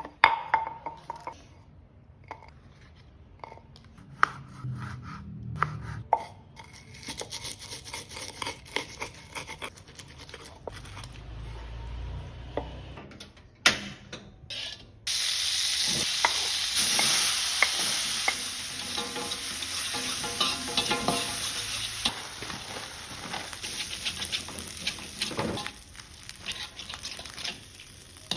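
Cooking in a pan: scattered clicks and knocks of utensils at first, then about halfway through a sudden loud sizzle as food goes into hot oil, which carries on while it is stirred with a spatula.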